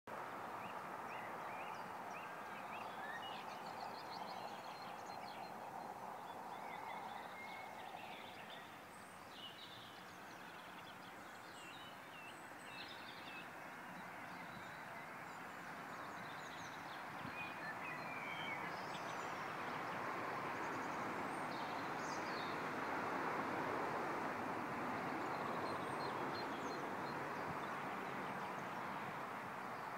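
Songbirds chirping and singing over a steady rushing background noise, which grows louder from about halfway through and eases a little near the end.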